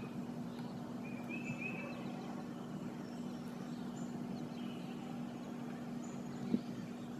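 Steady low background hum with faint bird chirps now and then, and a single short knock near the end.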